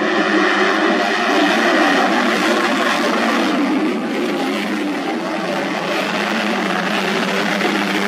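Modified underbone racing motorcycles on a grasstrack, their engines revving hard and rising and falling in pitch as they race past.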